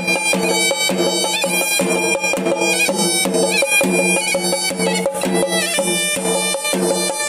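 Horanewa, the Sri Lankan double-reed pipe, playing a shrill, steady reedy melody, accompanied by rapid drum strokes from thammattama drums beaten with curved sticks.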